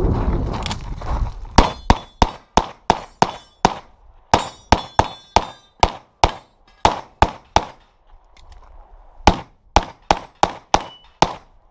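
Limited-division competition pistol fired in fast strings of shots, about eight, then ten, then eight, each string a few shots a second, with brief pauses between them.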